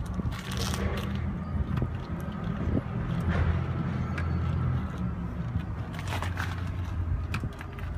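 Single-cylinder two-stroke engine of a 1973 Kawasaki 250 motorcycle idling steadily, a little louder for a couple of seconds midway, after more than 20 years in storage.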